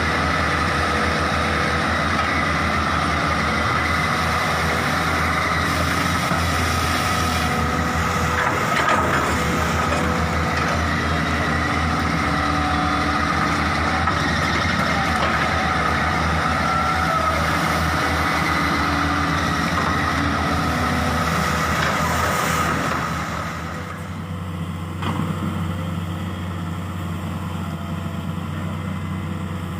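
Hydraulic excavator's diesel engine running steadily under working load, with a high hydraulic whine over the engine note; about three-quarters of the way through the engine and whine drop to a quieter, lower running level.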